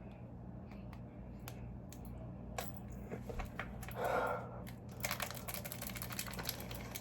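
Plastic soup container's lid being worked open by hand: scattered clicks and crackles of the plastic, a brief louder noise just after four seconds, then a dense, rapid crinkling from about five seconds in.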